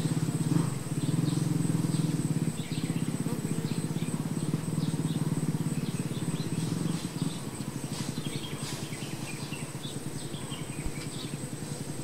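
A cluster of honey bees buzzing: a steady low hum of many wings, a little louder for the first seven seconds or so, with short high chirps scattered over it.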